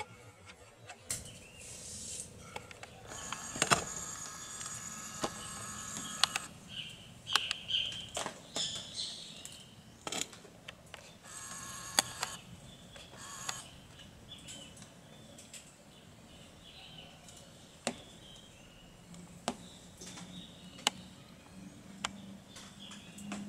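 A blue land crab (guaiamum) working at a mango it holds in its claws: scattered sharp clicks and scrapes, with two buzzy, rasping stretches, one a few seconds in and one near the middle.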